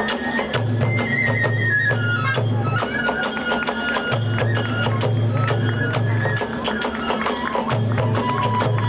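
Kagura festival music: a bamboo flute melody over fast, continuous drum beats and rapidly clashing small hand cymbals.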